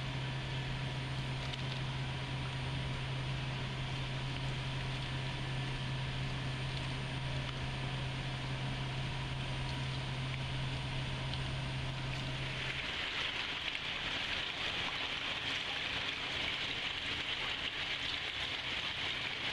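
Dewatering screw press running with a steady low hum under a hiss. About thirteen seconds in the hum stops and a steady hiss of running, splashing water takes over.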